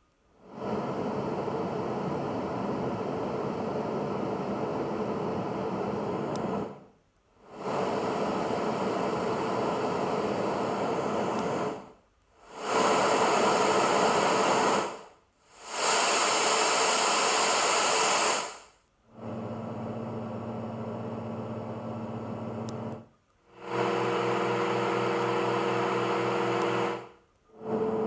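LectroFan Micro sleep speaker cycling through its steady noise sounds: six different hiss-like noises of a few seconds each, split by brief silences. The two around the middle are the brightest and loudest; the last two are duller and carry a steady low hum.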